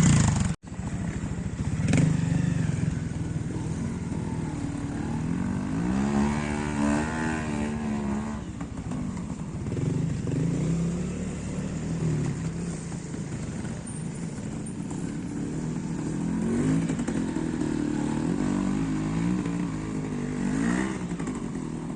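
Trials motorcycle engine running at low revs, opened up in rising-and-falling blips of throttle twice, as a rider works the bike through an observed section.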